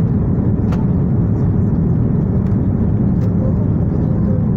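Steady, loud, low cabin roar of an Airbus A330-200 in flight shortly after takeoff: jet engine and airflow noise heard from a window seat. Two faint clicks come about a second in and again past the three-second mark.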